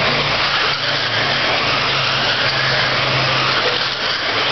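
Radio-controlled race cars running laps on a dirt oval: a dense, continuous whir of small motors and tyres on the dirt, swelling and easing slightly as cars pass, over a steady low hum.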